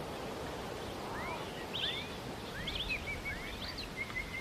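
Wild birds calling: a scattering of short upward-sweeping whistles and quick chirps from about a second in, over a steady outdoor background hiss.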